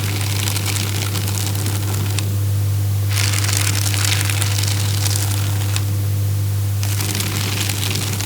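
Electric paper shredder running with a steady motor hum while paper is fed through, giving three stretches of crackly shredding, the last starting near the end.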